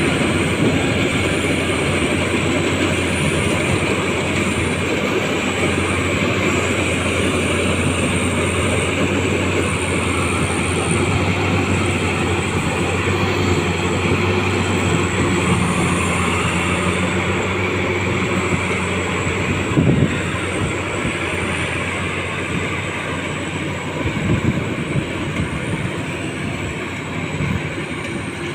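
Rice combine harvester running steadily, its engine drone and a high whine continuous, with a short knock about two-thirds of the way through; the drone eases near the end.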